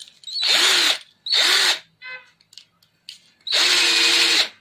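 Black+Decker 12V cordless drill/driver running in three short trigger bursts, each spinning up quickly. The third burst is the longest.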